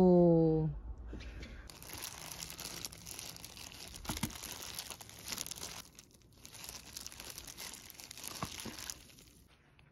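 Hands in thin plastic gloves mixing noodles in a plastic takeout tray: steady crinkling and rustling of plastic, with a short pause about six seconds in.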